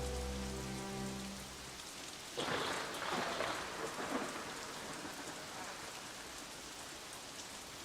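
Steady rain, with a sudden louder rush of noise about two and a half seconds in that fades over the next two seconds. Soft music fades out underneath over the first two seconds.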